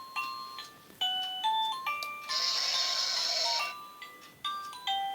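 A children's sound book's electronic sound chip playing a simple beeping melody, one note at a time, with a burst of hissing noise lasting about a second and a half a little before the middle.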